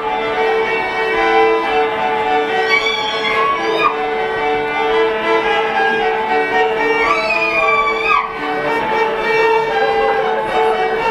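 Folk band playing a dance tune, led by fiddle with sliding ornaments, over a held accompanying note and accordion and double bass accompaniment.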